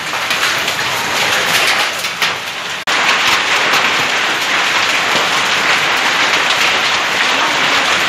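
Heavy rain drumming on corrugated metal roofs and shutters, a dense steady hiss. There is a sudden cut about three seconds in, after which the downpour is louder and steadier.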